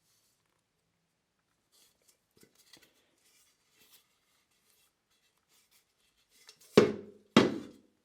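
A few faint light clicks, then two sharp knocks about half a second apart near the end, each ringing briefly as it dies away.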